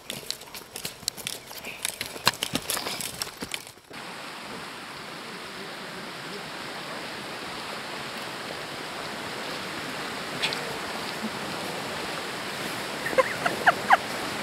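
Footsteps and trekking-pole tips clicking on a stony path for about four seconds. After a sudden change, a steady rushing like a mountain stream takes over and slowly grows louder.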